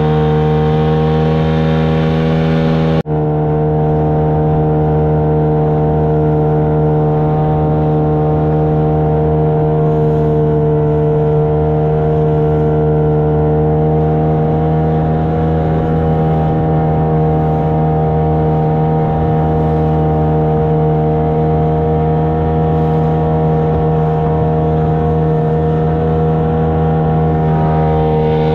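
Hangkai 15 hp outboard motor running steadily, pushing an inflatable boat along at speed. Its note holds one pitch throughout, with a brief drop about three seconds in.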